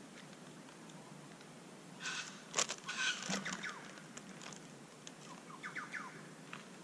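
Crinkling and clicking as a campfire is being lit from kindling and corn chips, in a burst about two seconds in that lasts over a second, followed by a few short chirps near the end.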